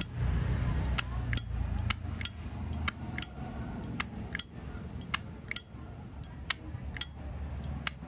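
Zippo lighter's hinged lid being flipped open and snapped shut over and over, each a sharp metallic click with a brief ringing ping, about two clicks a second.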